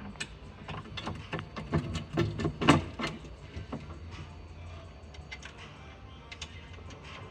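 A string of sharp clicks and knocks from metal bed-frame hardware being handled while the gas-lift arm is screwed and bolted in place, busiest in the first three seconds, then a few faint ticks. Background music plays underneath.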